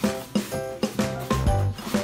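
Background music with a steady beat, about four notes a second over a low bass pulse.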